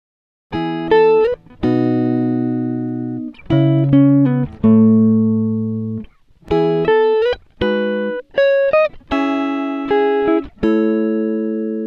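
Background music: a plucked, guitar-like melody of separate notes that each ring and fade, starting after a half-second silence.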